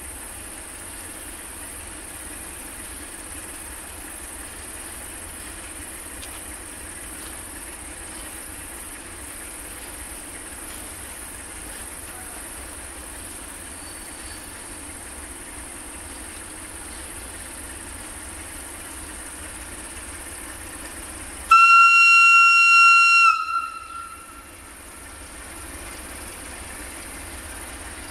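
Electroputere LDE diesel-electric locomotive sounding its horn once, one steady high note a little under two seconds long that cuts off and trails away in an echo. Under it, the locomotive's engine idles steadily and crickets chirp.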